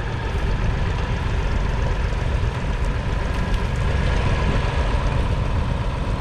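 Massey Ferguson 250 tractor's 2.5-litre three-cylinder diesel engine running steadily.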